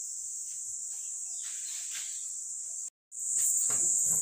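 Tree insects droning in a continuous high-pitched buzz. It cuts out for an instant about three seconds in and comes back louder.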